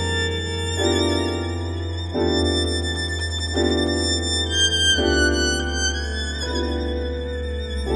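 Violin music: a slow melodic line played with vibrato over a held low bass note. A chord accompaniment re-sounds about every second and a half.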